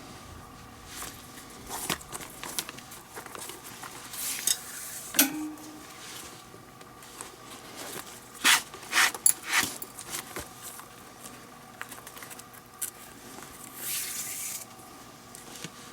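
Hands working a leather baseball glove during relacing: leather lace drawn through the lace holes in short scraping swishes, with scattered small clicks and taps of handling, the sharpest cluster of clicks about halfway through.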